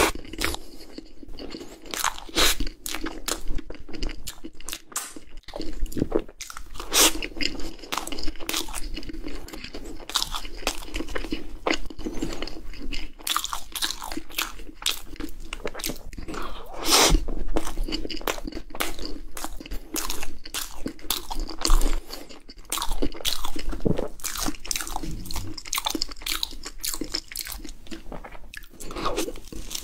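A person biting into and chewing cream puffs close to the microphone, the crisp choux pastry shells crunching in many short, irregular bites and chews.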